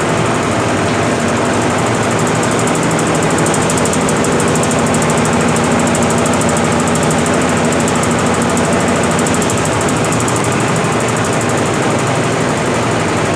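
Brastemp BWL11 11 kg washing machine in its final spin with rugs inside, the drum spinning at speed with a loud, steady running noise.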